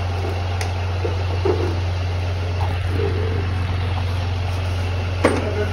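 An engine idling with a steady low drone, with a few faint clinks of tools being handled and a sharp clack near the end.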